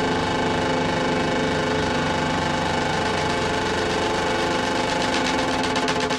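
Electronic dance music in a beatless breakdown: a dense, steady, buzzing synth drone with held tones. Near the end a fast pulsing rhythm comes in and builds.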